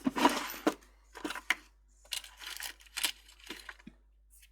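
Short, irregular bursts of scratchy scraping and handling noise from hand work on a keyboard's circuit board, four or so rough bursts with brief gaps, and no motor running.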